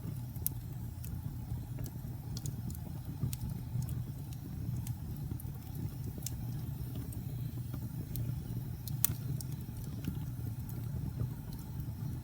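Fire in a fireplace crackling, with irregular sharp pops and snaps over a low steady rumble; one pop about nine seconds in stands out as the loudest.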